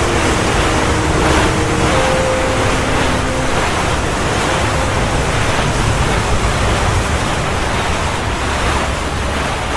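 Rushing water and wind buffeting the microphone on a fast-moving sailing boat, with a few faint steady whines in the first few seconds.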